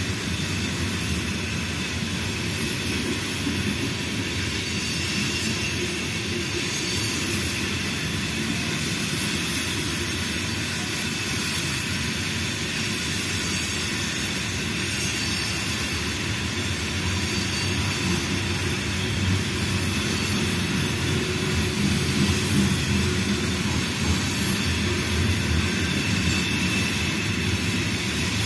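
Freight train of covered hopper cars rolling past, a steady rumble and rattle of steel wheels on the rails. It grows a little louder near the end, with a thin high whine.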